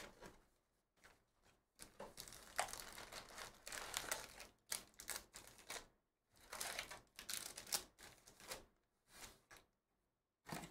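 Foil-wrapped trading card packs crinkling and a cardboard box flap rustling as the packs are pulled from a hobby box and stacked by hand. It comes as a string of short, irregular, faint rustles.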